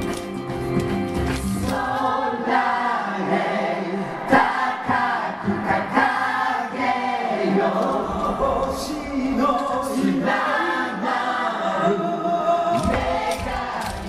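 Music with singing voices.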